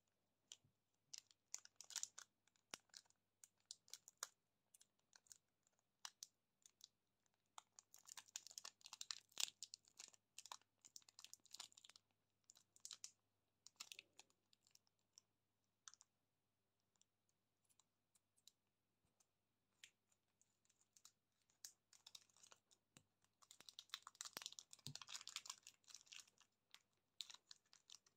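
Fingers handling and peeling the crinkly plastic wrapper of a lollipop: quiet, scattered sharp crackles and clicks, with denser bursts of crinkling about a third of the way in and again near the end, and a lull in the middle.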